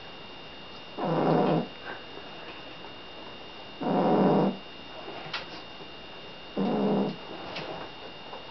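Seal point Siamese cat snoring in his sleep: three snores, each well under a second long, about three seconds apart.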